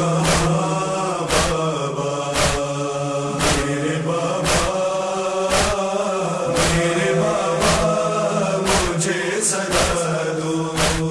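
Urdu noha (Shia lament) in a wordless passage: voices chant a drawn-out mournful line over a steady low drone, while sharp chest-beating strikes (matam) keep time about once a second.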